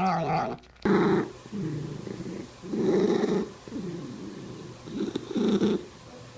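A cat purring loudly, in rough low pulses that come with each breath in and out, roughly one a second. At the very start the tail of a warbling, pitched cat call cuts off about half a second in.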